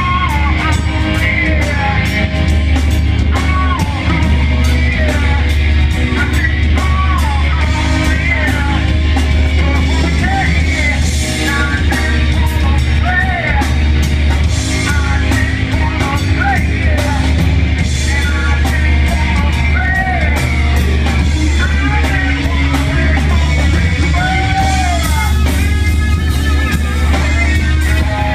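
Live rock band playing: a singer over electric guitar, bass, keyboard and drums, with a heavy bass and busy cymbals.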